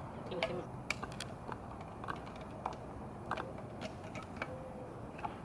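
Irregular light clicks and taps, about ten of them spread unevenly, from hands handling the plastic grille and fog-light parts of a Jeep Wrangler.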